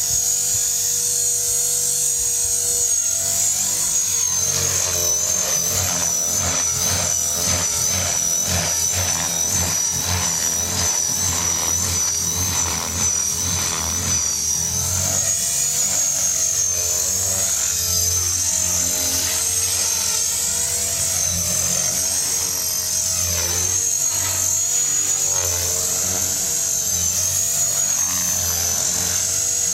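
Blade 450 3D electric RC helicopter flying, its high motor whine and rotor sound steady in level but wavering up and down in pitch as it is flown hard.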